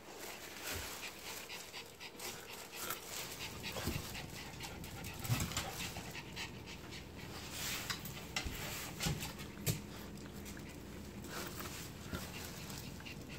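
Small dogs panting and sniffing as they lick and nose at a whole watermelon, with short scattered clicks and rustles from the plastic bag it sits in.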